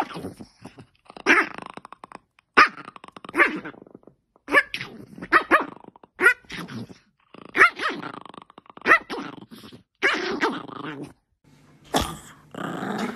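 A dog hidden under a blanket growling and barking in repeated angry bursts, about one a second, as a hand reaches toward it.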